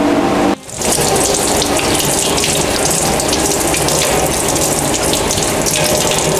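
Stand mixer running at low speed, its flat beater turning flour and shortening in a steel bowl: a steady motor whir with a hiss. It drops out briefly about half a second in, then carries on.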